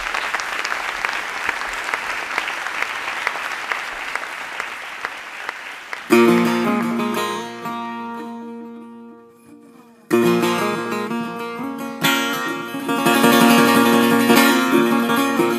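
Audience applauding for about six seconds. Then music on a plucked string instrument cuts in suddenly: notes ring out and die away, and the playing starts again strongly about ten seconds in.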